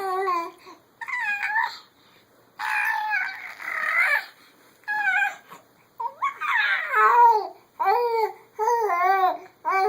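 A high-pitched voice making a series of short wavering squeals and whines, each bending up and down in pitch, coming quicker and more evenly in the second half.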